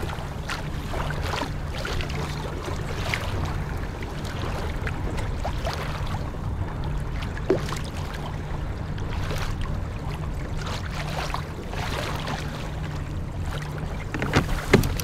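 Lake water slapping and lapping against a moving fishing kayak's hull in irregular splashes, with wind on the microphone and a steady low hum underneath. One short sharp sound about halfway through.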